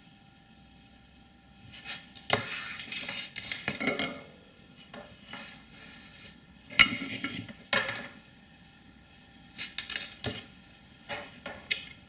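Small metal tools clinking and rattling on a workbench in a handful of short bursts as they are handled and put down.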